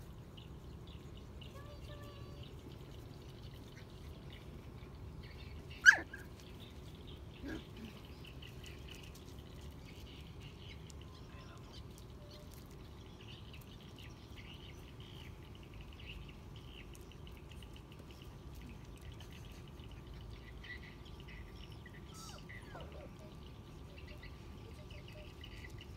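Puppies: one sudden loud yelp falling in pitch about six seconds in, a fainter whimper just after it, and another short falling cry near the end. Faint bird chirping goes on underneath.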